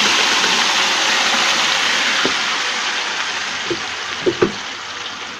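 Blended wet chili spice paste hitting hot oil in an aluminium wok: a loud sizzle that slowly dies down, with a few short crackles in its second half.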